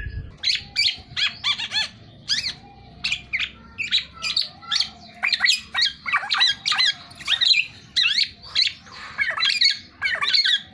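Black-naped oriole (kepodang) calling in a fast, unbroken run of short notes that sweep sharply up and down, several a second.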